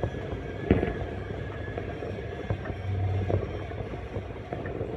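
Distant aerial fireworks going off: one sharp bang about a second in and a few lighter pops after it, over a steady low rumble.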